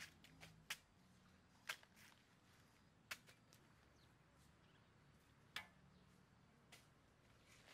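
Faint, sharp knocks of hand tools chopping in a garden bed: a knife in banana stems and a hoe in the soil. The strikes come irregularly, several close together near the start, then one every second or two.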